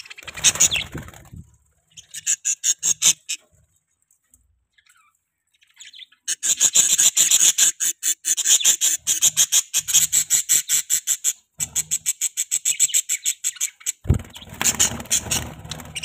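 A flock of budgerigars chirping and chattering in quick runs of short, high chirps, falling silent for about two seconds before chattering steadily again. A single knock sounds near the end.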